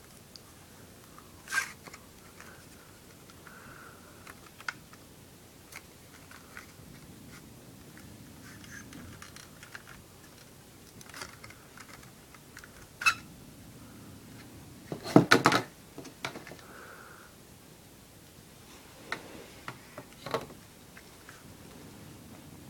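Plastic CD jewel case and its outer sleeve being handled: scattered clicks and taps with faint sliding rustles, the loudest a quick cluster of knocks about fifteen seconds in.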